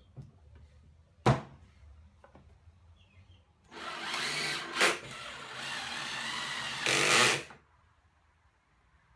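A power drill runs for about four seconds, getting louder just before it stops. A single sharp knock comes about a second in.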